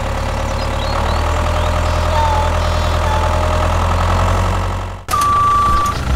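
Tractor engine idling with a steady low chug. About five seconds in it cuts off sharply and a single steady electronic beep sounds for about a second.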